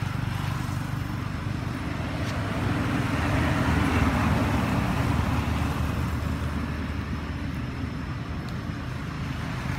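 Low, steady rumble of a motor vehicle engine running nearby, growing a little louder around the middle and easing off again.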